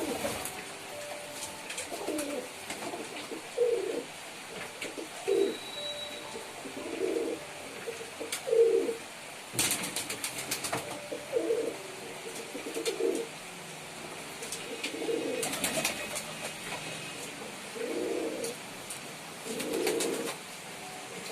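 Domestic pigeons cooing, one low coo after another, often overlapping. A few sharp clicks or rustles come in around the middle and again later.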